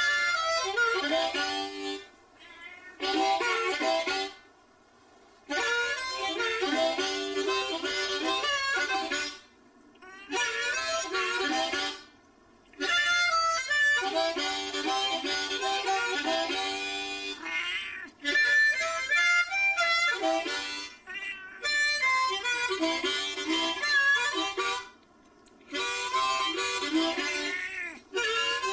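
A harmonica played in phrases of held notes and chords a few seconds long, with short breaks between them.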